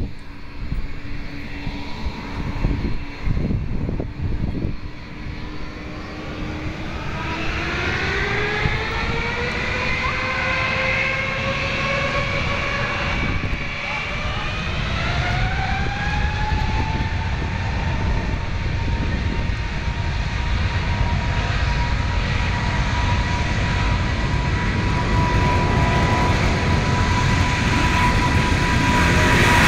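Boeing 777-200's twin turbofan engines spooling up to takeoff thrust. A low steady hum turns, about seven seconds in, into a whine that rises in pitch in several tones over some ten seconds, then holds high and steady as the engine noise grows louder with the start of the takeoff roll.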